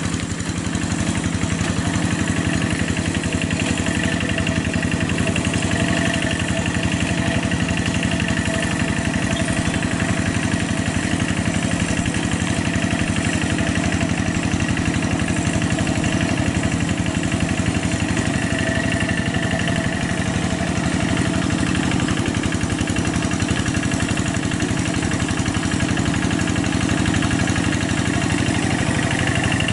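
Single-cylinder diesel engine of a two-wheel hand tractor running steadily under load with a rapid, even chugging, as it pulls through a flooded rice paddy on cage wheels.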